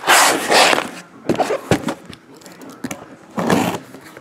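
Cardboard case of trading-card boxes being slid and handled on a table: a loud scrape at the start, a couple of short knocks, and another scrape about three and a half seconds in.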